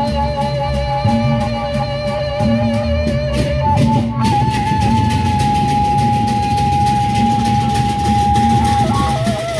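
Sasak gendang beleq gamelan playing: a flute holds long, steady melody notes over big drums beating a repeating rhythm, with cymbal clashes that thin out about four seconds in. From about four seconds in, the flute sustains one long high note until just before the end.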